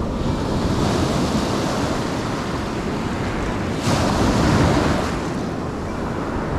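Ocean surf washing ashore, with wind on the microphone; a wave breaks louder about four seconds in.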